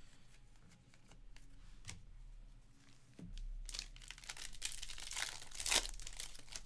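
A 2022 Bowman Draft card pack's wrapper being torn open and crinkled, the crackling growing loudest in the second half, after a few light clicks of trading cards being handled.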